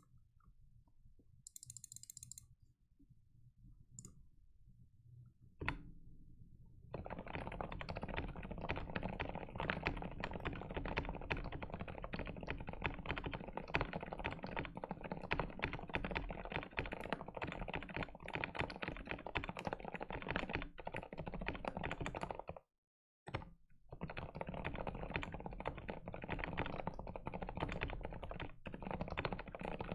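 Typing on a RAMA Kara mechanical keyboard fitted with silent linear frankenswitches: Kailh Cream housings with lubed Silent Gateron Red stems and 62 g springs. Steady fast typing starts about seven seconds in, after a single clack. It stops for a moment about three quarters of the way through, then resumes.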